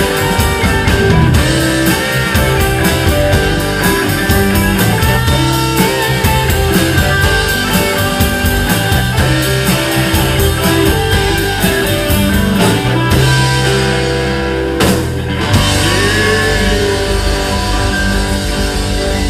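Live rock band playing: electric guitars over a drum kit, with a short break where the band drops out about fifteen seconds in.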